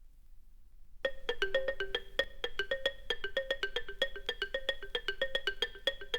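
Vinyl record playback of a jazz-rock track: about a second of faint groove noise, then the music starts with a fast, evenly spaced run of short struck-sounding notes in a repeating pattern.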